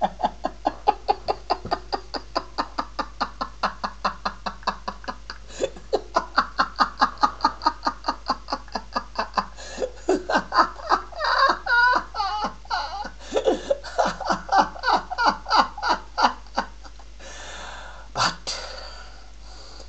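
A man laughing long and hard in a steady string of 'ha' pulses, about three or four a second, which dies away about 17 seconds in.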